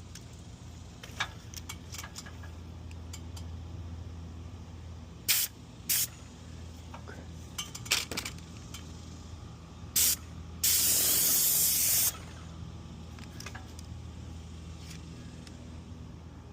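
Paint sprayer spraying a garage door in several short bursts of hiss, then one longer burst of about a second and a half, over a steady low hum.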